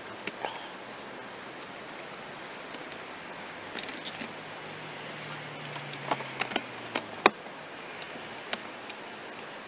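Plastic clicks and light rattles from hands handling the Renault Laguna 2's cabin filter housing cover: a short cluster about four seconds in, a run of sharper clicks between six and seven and a half seconds, and one more near the end, over a steady hiss.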